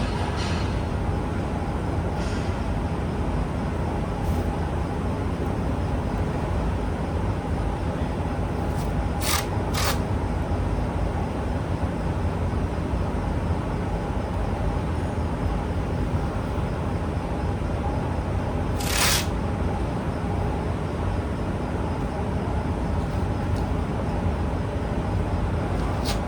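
Steady low mechanical hum in a workshop. Short hisses, like bursts of air, come twice about nine seconds in and once more about nineteen seconds in.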